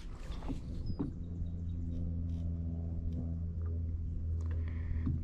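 Bow-mounted electric trolling motor running with a steady low hum, with a few faint clicks over it.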